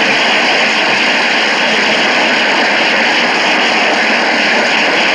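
Audience applauding and cheering in a steady, dense roar after a rallying line of a sermon.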